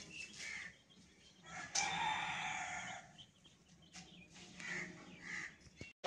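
A rooster crowing once, one long call of about a second and a half beginning near two seconds in, with fainter short calls before and after it.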